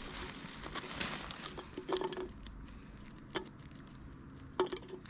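Faint handling noises from litter being picked over: a few short, sharp clicks against a quiet background.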